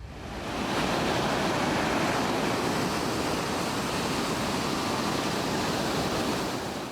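Steady rush of ocean surf and wind, swelling in over the first second and fading out near the end.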